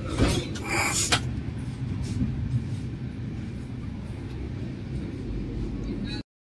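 Steady low rumble of a moving train heard from inside a passenger coach, with rustling and knocks from the phone being handled in the first second. The sound cuts off suddenly near the end.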